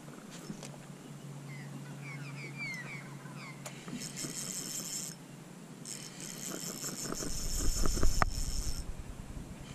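Fishing reel being wound in two short bursts, a high whirring that starts and stops, while a hooked fish is played on the line. Small birds chirp in the first few seconds, and handling knocks and rumble come near the end.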